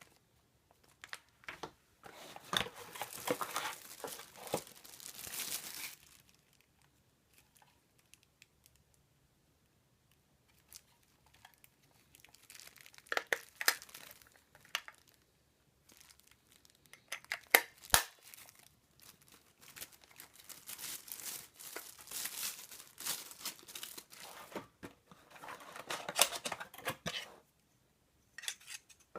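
Packaging being unwrapped by hand: plastic wrapping crinkling and tearing in several irregular bursts, with sharp handling clicks and quiet pauses between.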